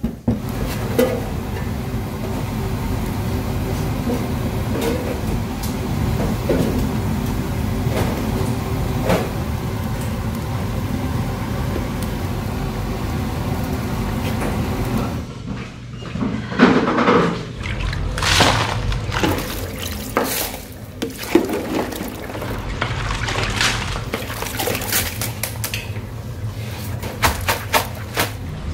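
A pan of braised cutlassfish simmering on a gas burner, its broth bubbling in a steady hiss for about the first fifteen seconds. After that come irregular knocks and clatter of kitchen pans and dishes.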